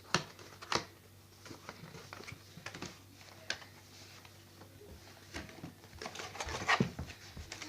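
Cardboard box of a children's crochet kit being opened and handled: scattered clicks, taps and light rustles of cardboard and packaging, with a cluster of louder knocks near the end.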